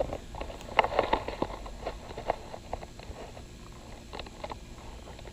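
Scattered light knocks and clicks, like footsteps and handling noise, clustered about a second in and again a little past four seconds.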